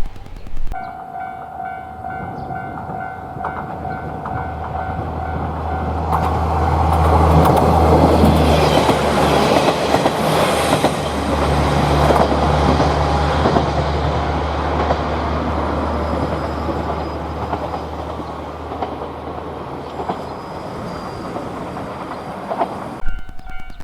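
A KiHa 40-series diesel railcar passes over a level crossing. Its engine drone and the rush of its wheels on the rails build, peak about a third of the way in, and fade slowly. The crossing's warning bell rings at first, until the train drowns it out.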